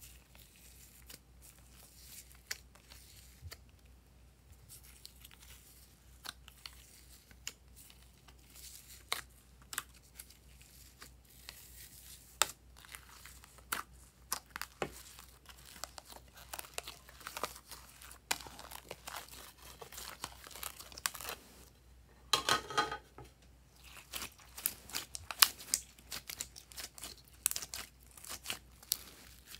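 Glossy glitter slime being peeled, pressed and squeezed by hand, giving sticky crackles and small popping clicks that grow denser in the second half. One longer, louder crackle comes about two-thirds of the way through.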